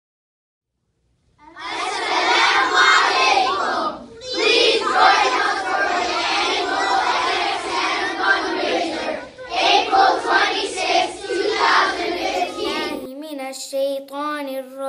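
A large group of schoolchildren calling out together in unison, in three stretches with short breaks between. Near the end a single girl's voice takes over, chanting a Quran recitation in a steady melodic line.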